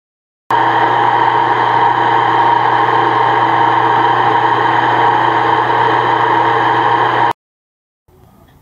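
Drill press running steadily as its bit drills through the sheet-metal rear part of a hood scoop: a constant mechanical whine that starts abruptly about half a second in and cuts off abruptly near the end.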